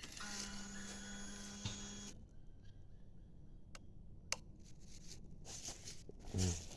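Harley-Davidson motorcycle being readied to start: a steady electric whine for about two seconds, the fuel pump priming as the ignition is switched on, then two faint clicks.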